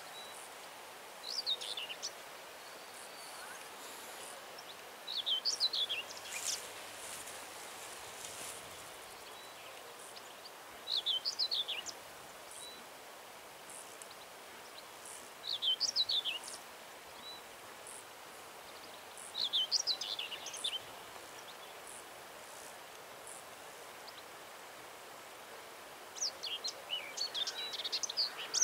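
A small songbird repeating a short, high, descending song phrase about every four to five seconds, five times, over a faint steady outdoor hiss; near the end more chirping joins in.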